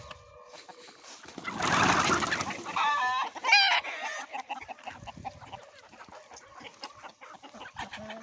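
A mixed flock of chickens clucking, many short calls overlapping. About two seconds in there is a loud noisy burst, followed just after by one bird's loud wavering call.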